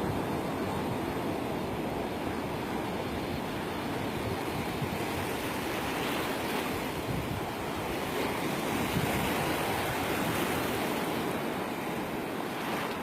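Ocean surf breaking on a sandy beach: a continuous wash of waves that swells a little louder midway, with some wind buffeting the microphone.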